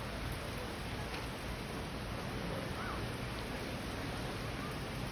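Rain falling steadily as an even hiss, with a few faint short chirps over it.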